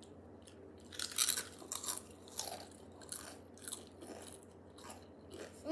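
Crisps being crunched and chewed by two people, the loudest crunches about a second in, then softer irregular crunching.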